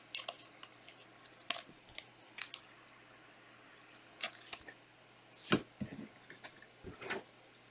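Packs and cards of 2020 Panini Select soccer being handled and opened: scattered short crinkles and clicks of foil wrappers and card stock, the loudest about five and a half seconds in.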